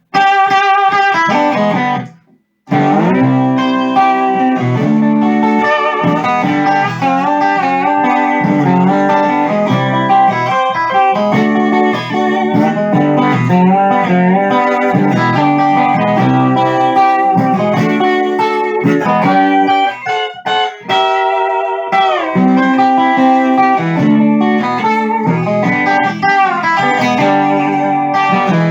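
Triple-neck six-string steel guitar played on its E neck: a run of picked notes and chords, with some notes sliding in pitch. The playing breaks off briefly about two seconds in, then carries on.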